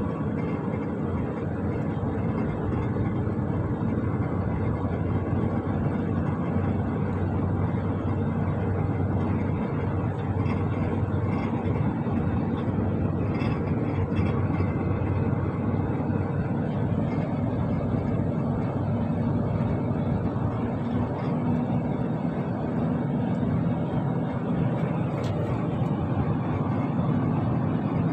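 Steady drone of a loaded truck's diesel engine and road noise, heard from inside the cab while cruising on a highway.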